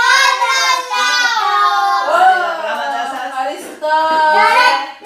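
Children singing loudly, with long held high notes and short breaks between phrases.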